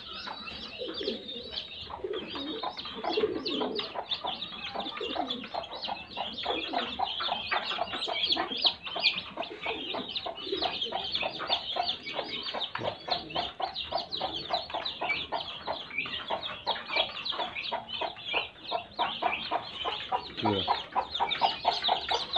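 A brood of newly hatched chicks peeping continuously in a dense stream of high chirps, with lower calls from adult birds now and then underneath.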